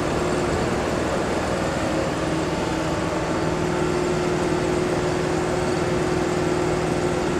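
Steady machinery drone with a constant low hum and a higher steady tone, which grows a little stronger about three seconds in.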